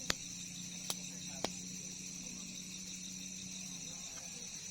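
Night insects, crickets, chirring steadily in several high bands, with three sharp clicks in the first second and a half and a low hum that fades out near the end.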